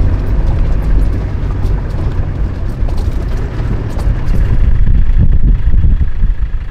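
Land Rover Defender driving slowly over a rocky track: steady low engine and road rumble with scattered small clicks and rattles.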